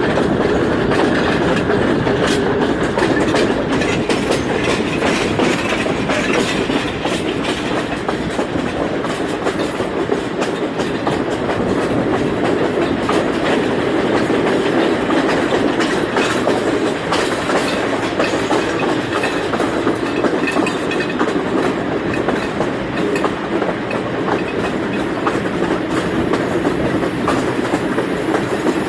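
Passenger train running along the track, a steady rumble with wheels clicking over rail joints throughout.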